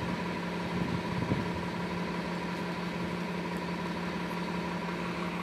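City transit bus engine idling: a steady, unchanging hum, with a brief rustle about a second in.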